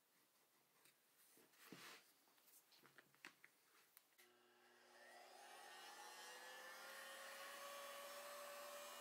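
A few light clicks and scrapes of a steel ruler being handled on a leather panel. About four seconds in, a handheld heat gun switches on. Its fan motor whines steadily, rising a little in pitch and growing louder as it spins up, while it blows hot air onto the leather.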